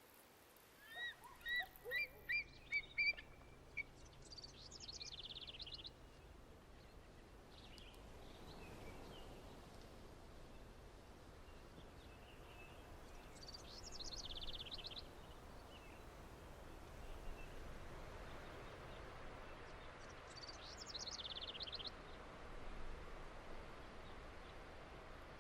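Wild songbirds singing over a steady faint outdoor background: a quick run of short chirps in the first few seconds, then a short high trilled song repeated three times, several seconds apart.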